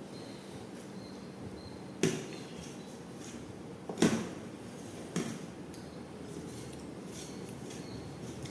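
Three sharp knocks of tableware during a meal, the middle one loudest with a brief ring, over a steady low background hiss.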